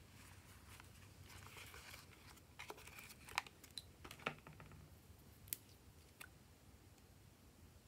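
Faint handling sounds of small plastic pieces: soft rustling, then a few sharp clicks and taps spread over several seconds, the loudest about midway, as a plastic bottle-shaped container and its brush cap are handled.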